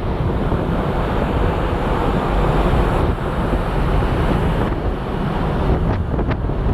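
Wind buffeting the microphone aboard a ferry under way, over a steady rush of sea water.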